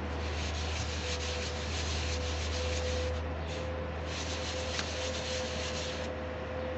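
Hydraulic gear pump housing rubbed by hand on an abrasive sheet, lapping its face flat: a gritty scraping that breaks off about three seconds in, with a brief stroke just after, resumes, and stops about six seconds in.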